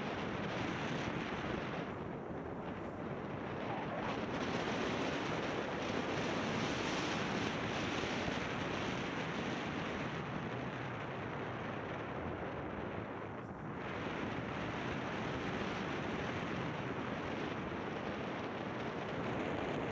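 Steady rushing of wind over the microphone mixed with skis sliding through powder snow as a kite pulls the skier along. The rush thins briefly about two-thirds of the way through.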